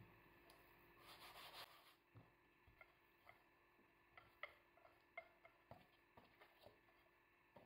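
Very faint sounds of puff pastry being rolled out with a wooden rolling pin: a short rustle about a second in, then scattered light clicks and soft rubbing.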